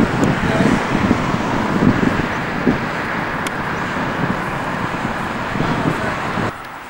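Wind buffeting an outdoor camcorder microphone: a loud, steady rushing hiss with irregular low thumps, which drops away suddenly near the end.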